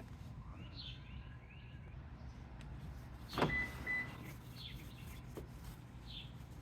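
Small birds chirping now and then, with short falling calls. About halfway through comes a sudden louder noise, followed by two short high beeping tones.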